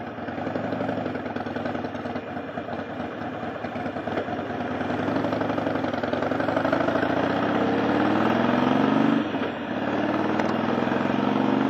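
Motorcycle engine pulling away from a stop and accelerating, its pitch rising through the gear, dropping at an upshift about nine seconds in, then rising again.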